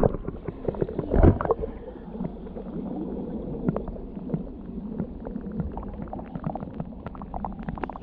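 Muffled underwater sound of a pool below a waterfall: a low rumble of the falling water with bubbling and scattered clicks and knocks, the loudest knock about a second in.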